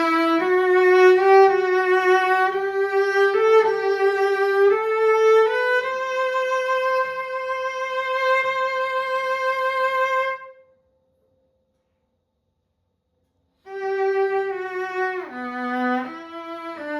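Solo cello, a Mirecourt instrument of about 1850 by Jean-Baptiste Thouvenal, bowed in a melody of held high notes that climbs to a long sustained note. The note is followed by about three seconds of total silence, then bowed playing resumes with a slide down in pitch.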